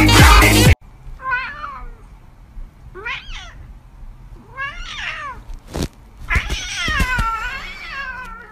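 A domestic cat meowing four times in a row. The last meow is long and drawn out, about two seconds.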